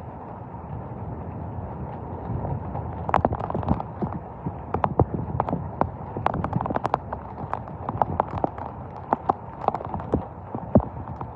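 Severe thunderstorm downpour: a steady rush of rain and wind, with irregular sharp taps and knocks on a nearby surface that come thick and fast from about three seconds in.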